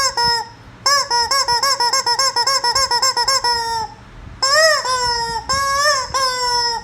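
Rubber chicken squeeze toy squawking. After two short squawks there is a fast run of short squawks, several a second, and after a brief pause come a few longer drawn-out squawks that rise and fall in pitch.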